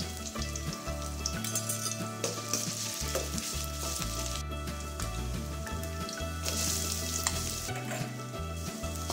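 Chopped garlic and ginger sizzling in hot oil in a stainless-steel kadai, with a steel spoon scraping and clicking against the pan as they are stirred.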